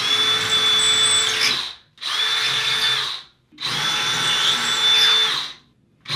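Cordless drill with a 3/16-inch bit boring out pilot holes in the wall for anchors: three short runs, each a steady whine lasting one to two seconds, with brief pauses between, and a fourth run starting at the very end.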